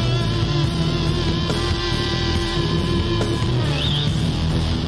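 Instrumental rock background music led by guitar, with a long held note that ends about three seconds in.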